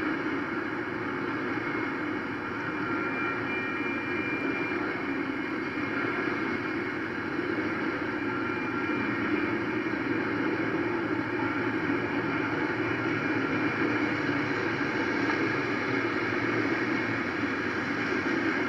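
Steady rumble and rolling noise of a freight train's cars passing over a street grade crossing.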